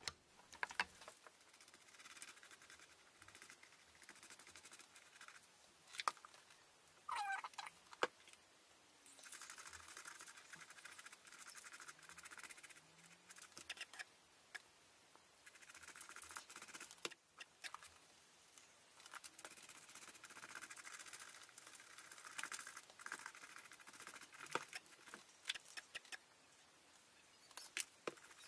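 PVA glue being spread over the turf-covered model railway embankment: soft scratchy rubbing in stretches of a few seconds, with scattered sharp clicks and a short squeak about seven seconds in.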